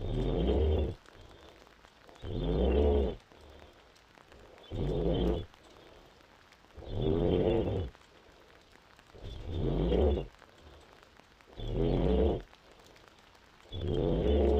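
A pregnant woman snoring in deep sleep: a rattling snore on each breath, about one every two and a half seconds, seven in a row with quieter breathing between.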